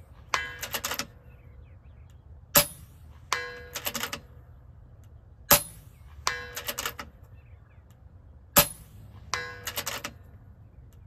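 FX Impact M3 PCP air rifle firing a group: three sharp shots about three seconds apart. Each shot is followed less than a second later by a quick run of metallic clicks with a ringing tone.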